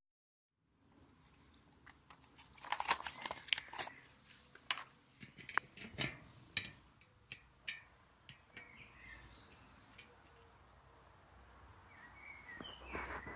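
Scattered sharp clicks and knocks of BMX bike parts and tools being handled, busiest in the first half, with a few faint bird chirps later on.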